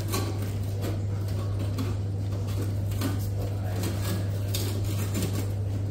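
Light metallic scrapes and small clicks as the sheet-metal front cover inside a Chaffoteaux Britony combi boiler is worked loose and lifted off, over a steady low hum.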